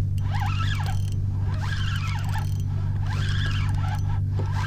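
Spinning reel cranked in strokes while fighting a fish: a gear whirr that rises and falls in pitch with each burst of cranking, about once every second and a bit, over a steady low hum.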